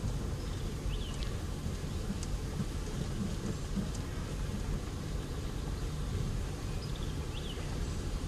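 Steady low rumble of a vehicle moving slowly along a sandy dirt road, heard from inside the cab. Two faint high chirps come through about a second in and again near the end.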